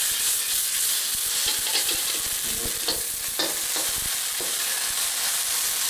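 Quinoa tacu tacu sizzling as it fries in oil in a wok, with a metal spoon scraping and tapping against the pan now and then as the patty is pushed into shape.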